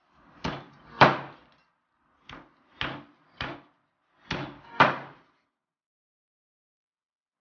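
Large kitchen knife chopping through raw bone-in chicken onto a plastic cutting board: seven sharp chops in the first five seconds, grouped two, three, two, the second and last the loudest.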